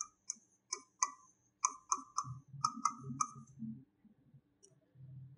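Marker tip clicking and tapping against a writing board as a word is written, about a dozen short clicks over the first three seconds, then quiet rustling of movement.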